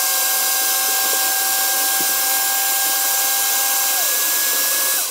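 A shop vac and a DeWalt random orbital sander running together off a power inverter, a loud steady motor noise with a high whine, drawing about 17 amps and just over 1,000 watts. About four seconds in, one motor's pitch drops, and both wind down at the very end.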